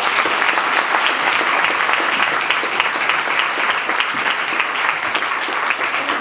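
An audience applauding steadily, many hands clapping in a conference hall.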